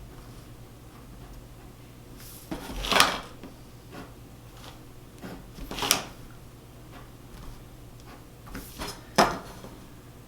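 Pencil and drafting tools working on paper on a drafting board: three louder scraping strokes about three seconds apart, with lighter taps and rubs between.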